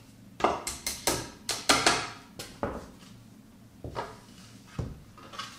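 Wooden dowels being fitted into the holes of flat-pack drawer side panels, with the panels handled on the work surface. A dozen or so irregular sharp clicks and knocks, thicker in the first half.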